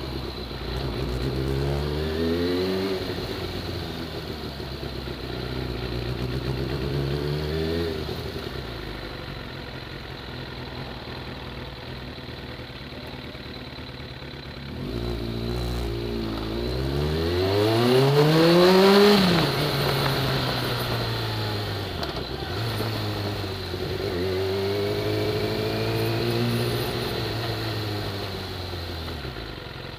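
Sport motorcycle engine heard from the rider's seat, accelerating and easing off in town traffic: the pitch climbs and drops several times, with the strongest rev about two-thirds of the way through, and a low, steady, slow-running engine in between.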